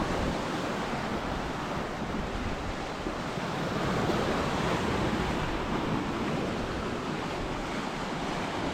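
Sea surf washing against the shore in a continuous rush that swells about four seconds in, mixed with wind noise on the microphone.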